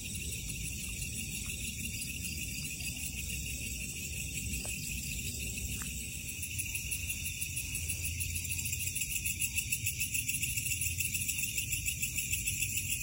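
Night chorus of crickets and other insects, a steady fast-pulsing high trill in several layers, over a low rumble.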